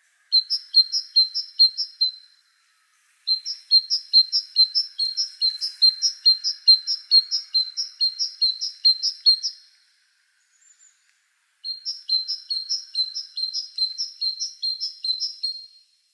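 A small bird singing a quick series of repeated high chirps, a few notes a second, in three bouts separated by short pauses.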